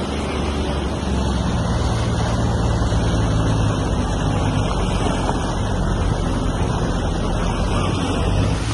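Jet ski engine running steadily at cruising speed over the hiss of water along the hull. Its note rises a little about a second in and then holds.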